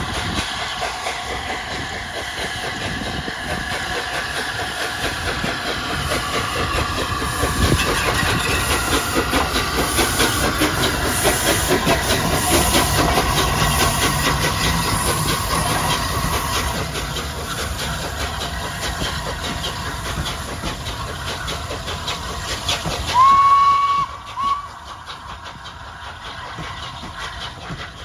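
Steam locomotive Flying Scotsman, an LNER A3 Pacific, running past with its train, its wheels clattering over the rail joints and steam hissing. The sound grows louder as it comes close and fades as it draws away. Near the end a whistle gives one short high note, then a brief second toot.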